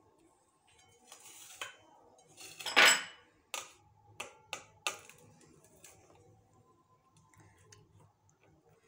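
Stainless steel plate knocking and clinking as fried potato halves are pressed flat by hand on it. One louder clatter comes about three seconds in, followed by four sharp clicks in quick succession, then only faint knocks.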